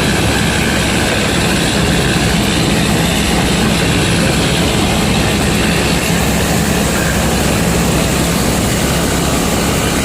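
Combine harvester's diesel engine running steadily under load, a constant heavy hum with broad machine noise and no change in pitch.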